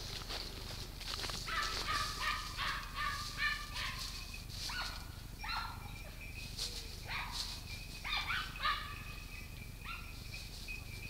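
Boar-hunting dogs giving tongue in the scrub: a quick run of yelps, then single barks about a second apart.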